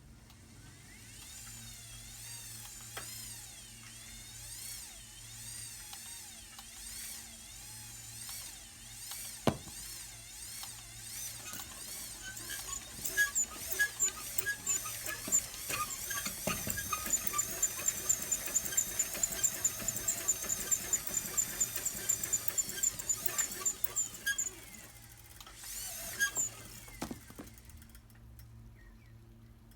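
Mechanical sound-making machines: wavering, high squealing whistles, joined about halfway through by a fast run of ticks and squeaks, about four a second, which stops a couple of seconds before the end.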